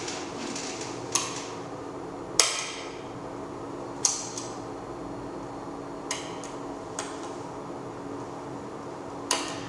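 Six sharp knocks or clacks, spaced unevenly and each with a brief ringing tail, over a steady low hum.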